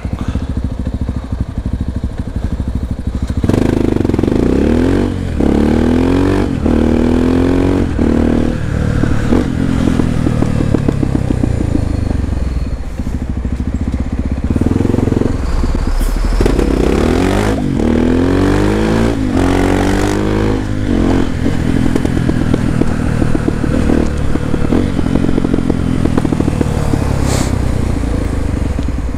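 Honda XR250 Tornado single-cylinder engine accelerating hard through the gears. Its pitch climbs and breaks off at each shift, four shifts a few seconds in and four more about halfway. Between the two runs the engine pulls more steadily.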